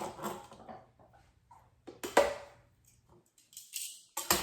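Kitchen handling sounds at a blender jar as ingredients go in: scattered rustles and light knocks, the loudest a sharp knock about two seconds in with a brief ring.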